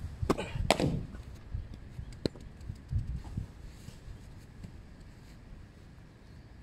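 A cricket ball in a practice net: two sharp knocks less than half a second apart, the ball pitching on the artificial turf and striking again, then a lighter knock about two seconds in.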